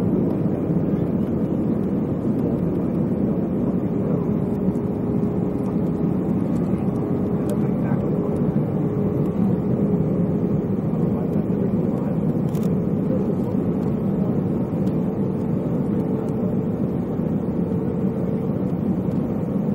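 Airbus A320 cabin noise in flight: a constant low rushing drone of engines and airflow, with a faint steady hum running through it.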